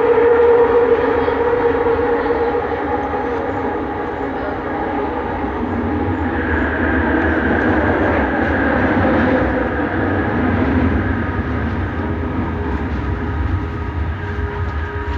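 Bombardier Innovia Metro 300 driverless metro train running, heard from inside the car: a steady low rumble with motor whine. A lower whine is strongest at first, and a higher whine comes in about six seconds in.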